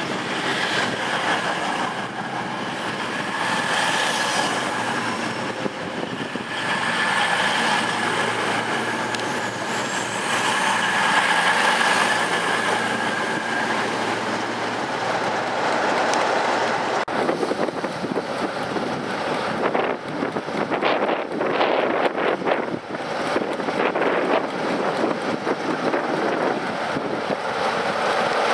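A CrossCountry Voyager diesel multiple unit running along the platform, with a steady high whine for much of the first half. About halfway through the sound changes to rattling and clicking of train wheels over the track.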